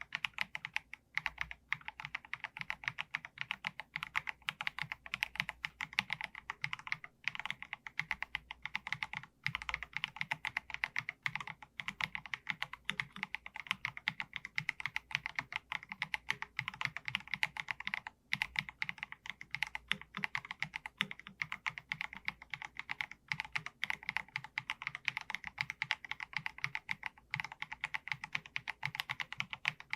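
Fast, continuous typing on an Akko MG108B full-size mechanical keyboard fitted with Akko V3 Piano Pro switches: a dense stream of key clacks that pauses briefly a few times.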